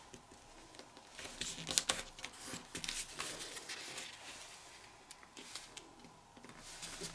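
A sheet of printer paper being folded and creased by hand: on-and-off rustling and short crisp scrapes as fingers press the flaps down and run along the folds.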